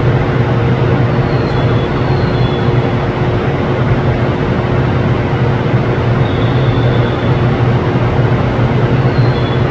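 An eight-car N700-series Shinkansen running in to the platform: a steady rushing noise with a low hum beneath it.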